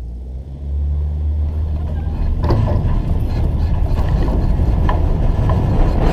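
Schweizer 2-33 glider on its takeoff roll across a bumpy grass field: a low rumble of the airframe and main wheel getting louder about a second in, with knocks and rattles over the rough ground from about two and a half seconds as it picks up speed.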